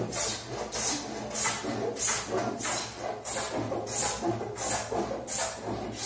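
A spokeshave cutting shavings from the edge of a softwood table top, about ten steady rasping push strokes, roughly one every 0.6 seconds, tapering the edge.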